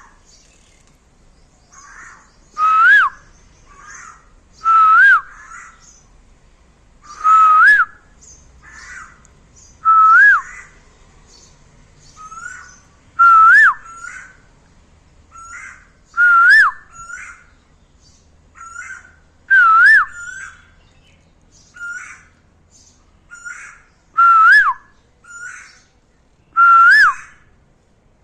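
Asian koel calling: a loud whistled note that rises and then drops sharply, repeated about every three seconds, with softer answering calls in between. Thin high chirps from other small birds are heard throughout.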